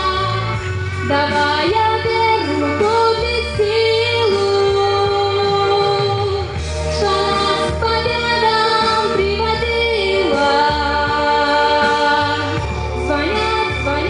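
A woman singing a Russian song into a microphone, her voice gliding and holding long notes over steady instrumental accompaniment.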